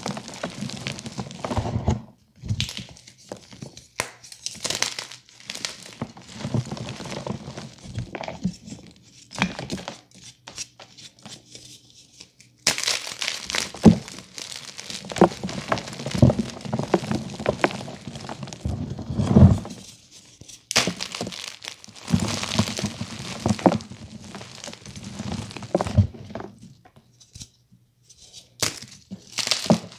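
Blocks of blue-dyed gym chalk crushed and crumbled by hand: dry crunching and crumbling in irregular bursts, with sharp snaps as pieces break apart, and a few short pauses.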